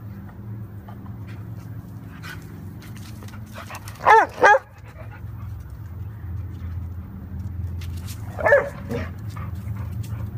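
Dog barking: two quick loud barks about four seconds in, then a single weaker bark about eight and a half seconds in.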